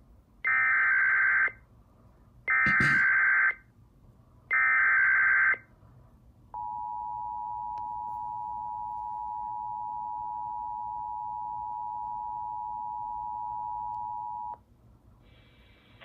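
SAGE 1822 EAS ENDEC sending an Emergency Alert System alert for a severe thunderstorm warning. It opens with three one-second bursts of SAME header data tones, a second apart. About six and a half seconds in, the EAS two-tone attention signal (853 and 960 Hz) starts and holds steady for eight seconds.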